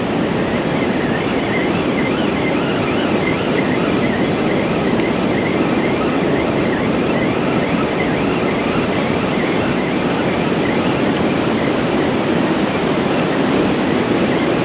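Steady wash of surf and wind across an open beach, with a faint wavering whine above it as a fixed-spool beachcasting reel is wound in.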